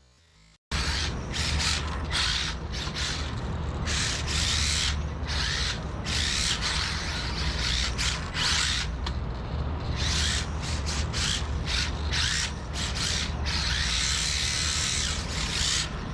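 Mini-Z RC drift car running, its small electric motor and gears whirring in repeated on-and-off throttle bursts over a steady low hum.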